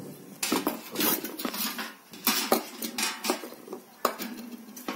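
Stainless steel spoons clinking and tapping against small steel bowls and a steel tray: a string of irregular metallic clinks.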